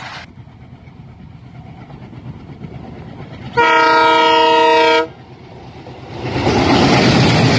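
Twin Alco diesel locomotives heading an express train approach with a low rumble and sound their horn once, a chord of several tones lasting about a second and a half, a little over halfway in. Near the end the locomotives pass close, and the engine and wheel noise swells loud.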